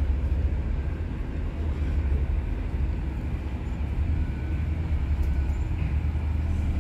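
Steady low rumble of a vehicle.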